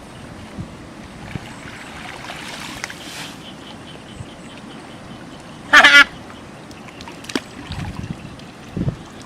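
One brief, loud, nasal call with a wavering pitch, about six seconds in, over a faint steady background.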